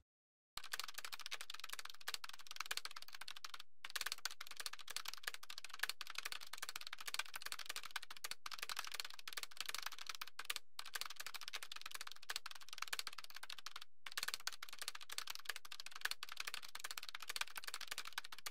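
Typing sound effect: a fast, continuous run of key clicks, starting about half a second in and broken by a few brief pauses.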